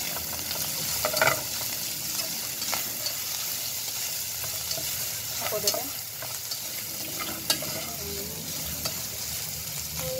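Chopped beef sizzling steadily as it is sautéed in a nonstick saucepan, a spatula stirring it with a few sharp clicks and scrapes against the pan.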